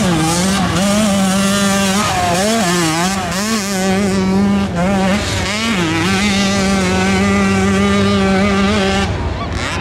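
Hill-climb racing motorcycle engine running at high revs under throttle, its pitch dipping and recovering several times, then held steady for a few seconds before dropping away about nine seconds in.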